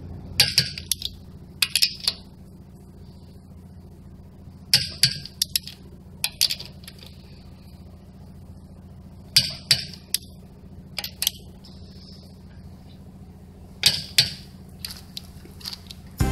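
Metal clinks and clicks of a hand socket wrench being fitted onto car wheel lug nuts and turned, in about six short clusters a few seconds apart. The nuts are being checked by hand for tightness after being run on with a power tool.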